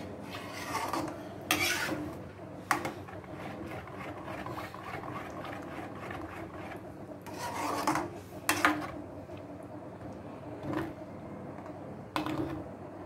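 A metal spoon scraping around the bottom of a metal kadai as it stirs thick tomato-and-cream gravy: a continuous rasping stir with a few louder scrapes.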